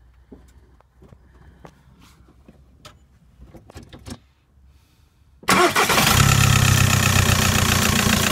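A few light clicks and knocks, then about five and a half seconds in the 1.9 TDI four-cylinder turbodiesel starts suddenly and runs at a steady idle, loud and close with the turbocharger's intake pipe off.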